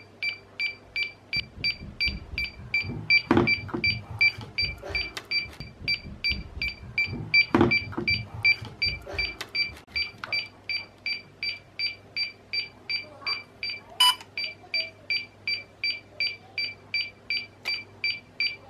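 Steady string of short, high electronic beeps, about two or three a second, from a DJI Mavic Mini in pairing mode while it links with its remote controller. A few light handling knocks come in between.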